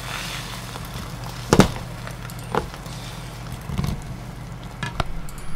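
Beaten egg sizzling in an oiled frying pan while a rolled omelette is turned, with a few sharp clacks of the spatula and pan, the loudest about a second and a half in.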